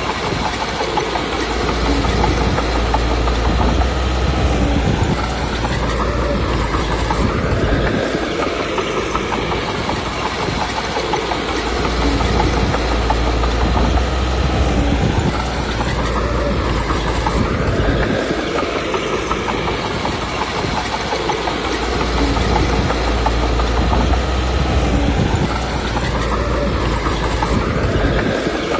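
Komatsu D21P crawler bulldozer's diesel engine working steadily. It swells and eases in repeated cycles about every ten seconds as the dozer loads up on each push.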